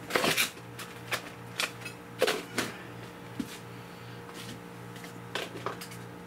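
A run of scattered knocks and clatters, about a dozen irregular hits with the loudest at the start and a little past two seconds in, as tools and wood are handled during window demolition. A faint steady hum lies underneath.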